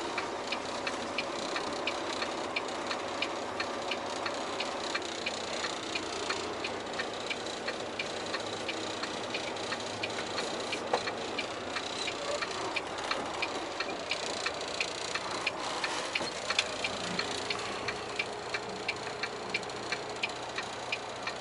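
Steady ticking of a tractor-trailer's turn-signal or hazard flasher inside the cab, about two ticks a second, over the truck's diesel engine running at low speed while backing. A couple of louder knocks come in about halfway through.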